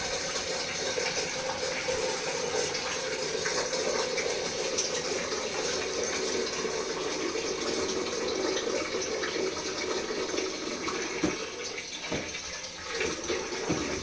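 Water running steadily from a kitchen tap into the sink, with a few light knocks near the end.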